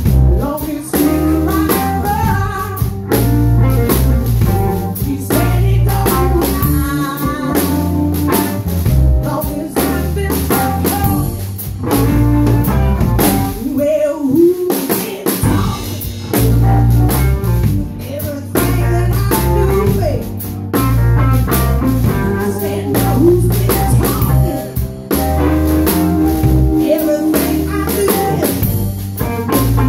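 Live blues band playing: a woman singing lead over electric bass, drum kit and guitar. The bass and drums stop briefly about halfway through, then the groove comes back in.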